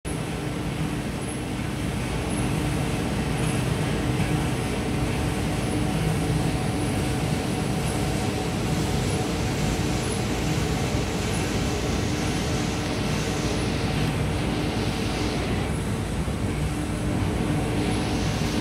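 Steady machine hum over a constant rushing noise, with faint high ticks about once a second.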